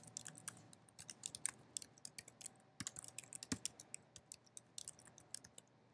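Typing on a computer keyboard: quick, irregular runs of key clicks that thin out near the end.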